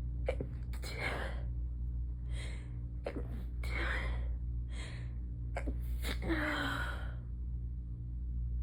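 A rapid string of stifled sneezes: short, sharp, held-in bursts, with gasping breaths between them, stopping about seven seconds in.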